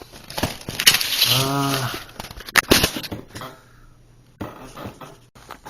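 A few sharp plastic clicks and knocks from a coffee machine's pod holder being handled and pushed shut. About a second in there is a man's drawn-out vocal sound, without words, whose pitch rises and falls.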